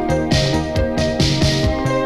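Instrumental music with a steady bass beat, played from a vinyl record on a BSR auto-changer turntable with a cheap ceramic cartridge, through a homemade valve (tube) preamp and recorded via a tape deck.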